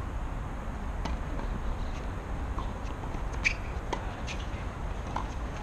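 Tennis rally on a hard court: several sharp pops of the ball off the racket strings and off the court, the loudest about three and a half seconds in, over a steady low rumble.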